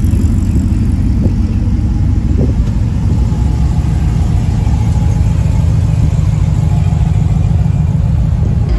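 A pickup truck's engine idling, a steady low rumble.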